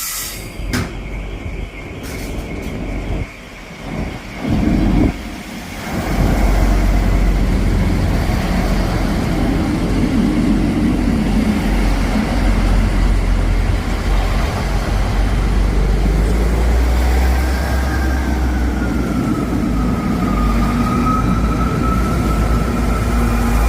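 Passenger train running through a station: the sound swells into a loud, steady rumble about six seconds in and holds, with a high whine wavering in pitch over the last several seconds.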